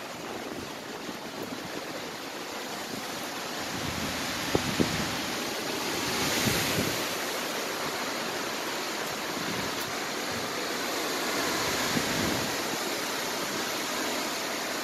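Hurricane wind and heavy rain, a steady rushing noise that swells in gusts about six seconds in and again near twelve seconds. A couple of brief low thumps of wind hit the microphone about four and a half seconds in.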